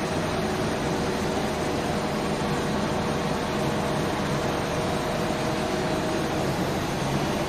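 Steady mechanical din of a running TPE underwater pelletizing extrusion line, an even whir with a faint constant hum in it.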